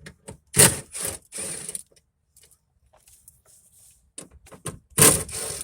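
Metal hand tools and loose parts clattering and knocking as they are handled and set down, with two loud rattling clatters about half a second in and near the end, and light clicks between.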